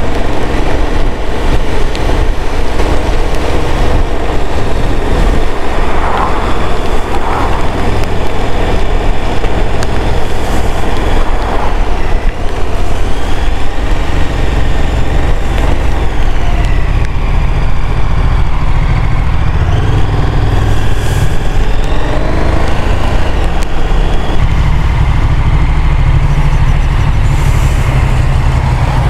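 Motorcycle engine running under way, heard from the rider's helmet camera under heavy wind rumble on the microphone, its pitch rising and falling with throttle and gear changes. It slows to a stop near the end.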